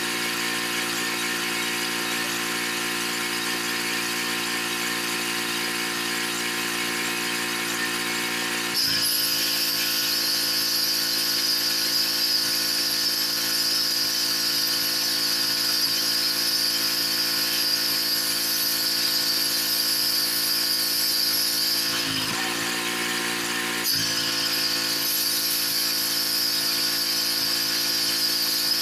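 Pressure washer running steadily. About nine seconds in, the spray starts and hisses loudly from the wand; it cuts out for about two seconds around two-thirds of the way through, then starts again.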